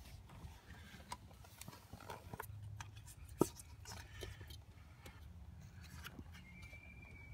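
Light clicks and knocks of a plastic pry tool and hands working an ignition coil loose from the engine, with one sharp click about three and a half seconds in.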